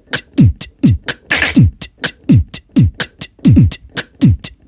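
Mouth-made drum beat played from a keyboard: beatboxed kick, hi-hat and snare sounds sliced into Logic's Quick Sampler. Deep kicks that drop in pitch come about every half second, with quick ticks between them and one longer hissy snare hit about a second and a half in.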